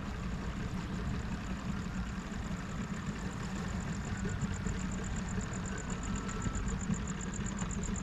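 An engine idling steadily with a low hum, and a faint, fast high-pitched pulsing over it.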